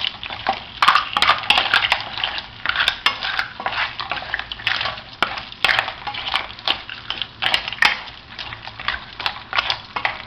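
Mixed seafood sizzling in olive oil in a frying pan as it is stirred, the utensil clicking and scraping against the pan many times at an uneven pace.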